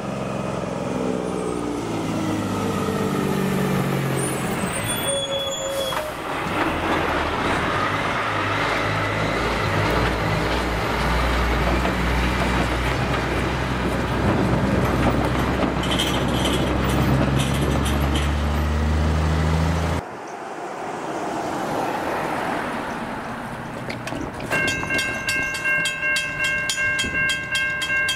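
Heavy-haulage truck's diesel engine running as it hauls a loaded low loader over the crossing, its pitch dropping at first and then climbing steadily as it pulls through. After a break, the level crossing's warning bells start ringing about three-quarters of the way in, a fast, even, repeating ring.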